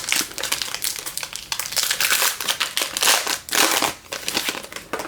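Foil wrapper of a trading-card pack crinkling and rustling as it is torn open and pulled off by hand, in quick irregular bursts.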